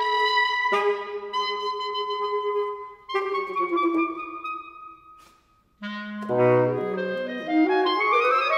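Clarinet and saxophone duo playing contemporary concert music: long held notes, one bending in pitch, a brief break about five seconds in, then quick low notes and a rising run.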